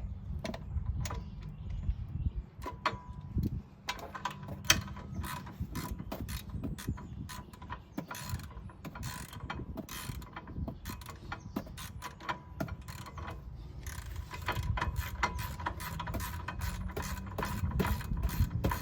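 Hand ratchet wrench clicking in quick, irregular runs as a bolt on a new rear brake caliper is snugged down.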